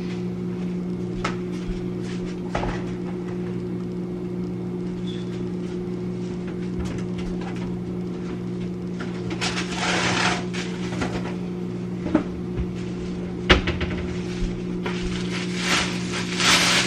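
Food containers and packaging being handled while a refrigerator is cleared out: scattered knocks and clicks, with rustling around the middle and near the end, over a steady low electrical hum.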